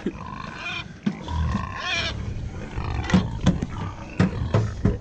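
Pigs grunting, with a higher-pitched call about two seconds in and several short grunts in the second half.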